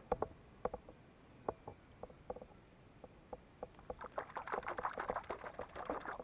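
Scattered light clicks and knocks, then from about four seconds in a hooked fish thrashing at the water's surface beside the kayak: a dense spell of splashing lasting about two seconds.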